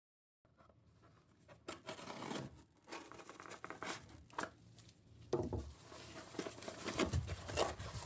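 A cardboard shipping box being slit open with a knife and pulled apart by hand: irregular scraping, tearing and crinkling of cardboard and packing material.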